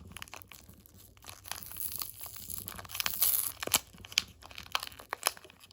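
Paper wrapper of a 1992 Topps hockey wax pack being torn open by hand, with irregular crinkling and sharp crackles that grow busier and louder about halfway through.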